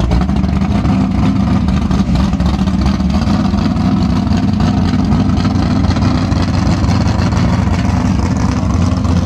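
A car engine running steadily with a loud, deep rumble, holding an even speed without revving.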